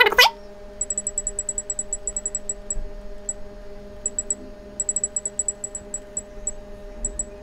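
70mai A500S dash cam buttons pressed over and over to step the clock's minutes up, each press giving a short high-pitched tick, in quick runs of about eight to ten a second with short gaps between runs. A brief louder sound comes at the very start, and a faint steady hum runs underneath.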